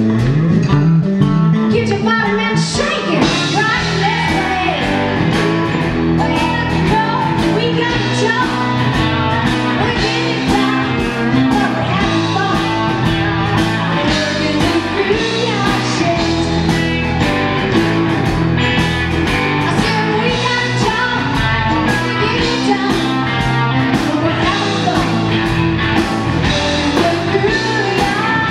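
Live blues band playing: electric guitar, Yamaha Motif keyboard, bass and drums, with a woman singing.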